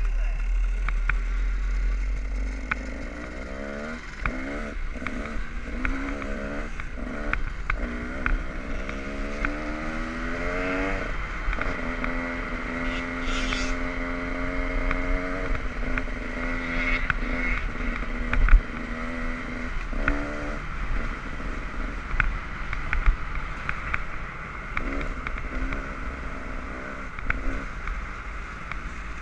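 Dirt bike engine running under way, its pitch climbing and dropping again and again as the throttle opens and closes. Wind rumbles on the microphone, and there is one sharp thump about two-thirds of the way through.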